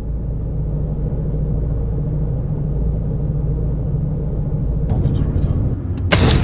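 Car running with a deep, steady engine and road rumble. A hissing noise comes in about five seconds in, and a brief loud burst of noise follows about a second later.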